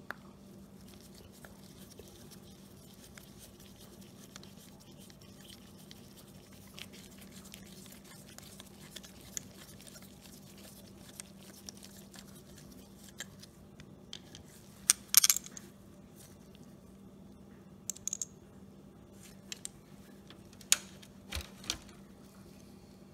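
Small clicks, scrapes and taps of a screwdriver working the main jet out of a small-engine carburetor and of the small metal parts being handled and set down, over a faint steady hum. A quick run of sharper clicks comes about two-thirds of the way through, and a few more near the end.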